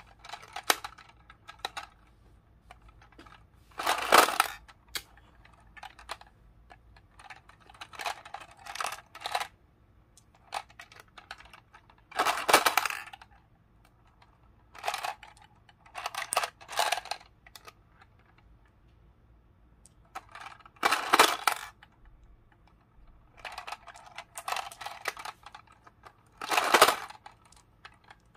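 Small plastic Hello Kitty toy slot machine played by hand: bursts of rattling plastic clicks from its lever and spinning reels. The four loudest bursts come about every eight seconds, with fainter clicking between them.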